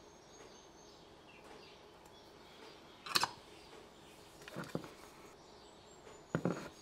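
Hands handling soldering gear on a wooden desk: one sharp click about three seconds in, as the iron is set back in its stand, then a few soft knocks as the tip thermometer is moved. A faint high whine sits underneath.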